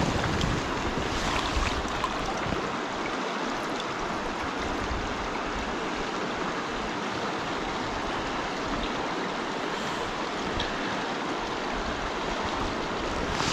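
A shallow river riffle rushing steadily over rocks close by.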